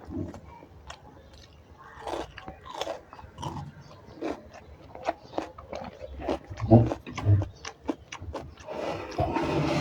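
One person chewing and biting crunchy food close to the microphone, with irregular crunches and wet mouth clicks, busiest and loudest near the end.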